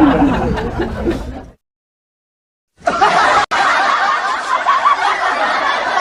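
Laughter sound effects: one laughing clip fades out about a second and a half in, and after a second of dead silence another laughing clip starts and runs on.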